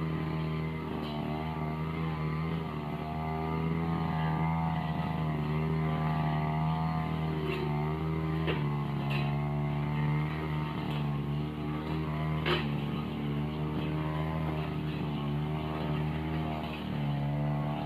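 Backpack brush cutter running under load as it cuts through dense weeds. The engine note wavers up and down and dips a little about halfway through, with a few sharp ticks over it.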